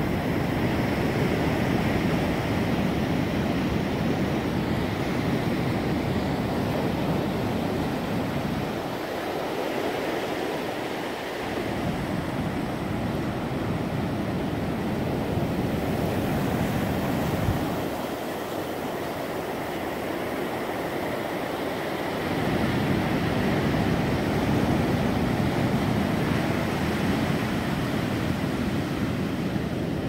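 Surf washing in over a rocky beach, a steady rush of breaking and receding water, with wind rumbling on the microphone that eases off twice for a few seconds.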